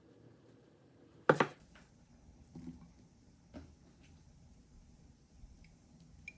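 A sharp knock a little over a second in, followed by a few lighter taps and clinks, from kitchen utensils or cookware being handled.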